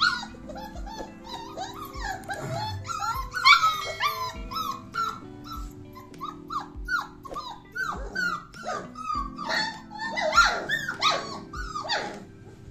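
A litter of month-old Doberman puppies yelping and whining in many short, high, arching cries that overlap, loudest in two clusters, a few seconds in and near the end, as they clamour to be let out. Background music with a steady low beat plays underneath.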